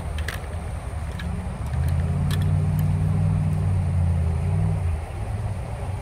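Road traffic rumbling from a nearby highway, with one vehicle passing louder from about two seconds in until about five seconds, and a few light clicks near the start.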